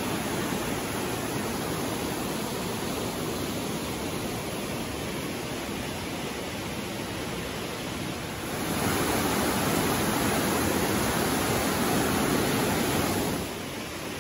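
Steady rushing of a mountain river or stream over rocks. It grows louder about two-thirds of the way through and drops back near the end.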